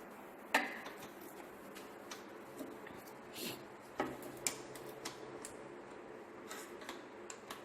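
Scattered sharp metallic clicks and clinks of hand tools on small car parts and fasteners, the loudest about half a second in and two more around four seconds in.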